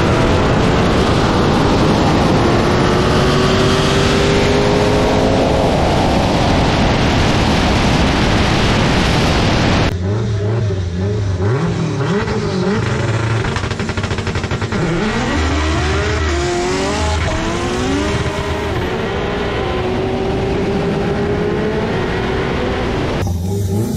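Supercharged V8 engines at wide-open throttle in a highway roll race, pitch climbing through the pulls under heavy wind noise. About ten seconds in the sound cuts abruptly to engines revving, their pitch sweeping up and down.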